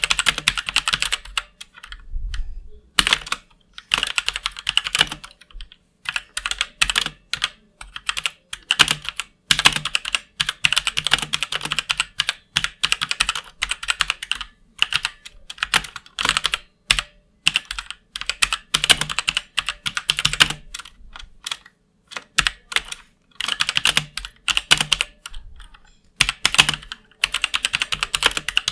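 Typing on a MeToo Zero mechanical keyboard with Outemu Red linear switches: quick runs of keystrokes broken by short pauses.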